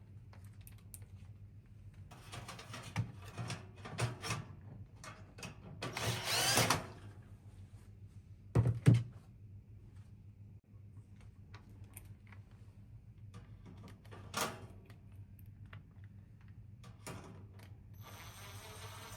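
Hands working on a PC case: scattered clicks and light taps, a brief scraping whirr, and two sharp knocks about nine seconds in, over a low steady hum.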